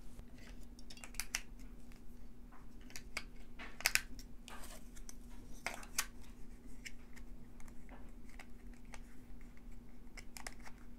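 Scattered light clicks and taps of a plastic two-cell 18650 battery holder being handled and loaded with cells, the sharpest about 4 and 6 seconds in, over a faint steady hum.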